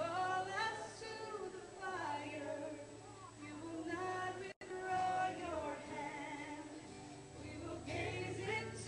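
Live worship song: a woman singing the lead melody, accompanied by two strummed acoustic guitars.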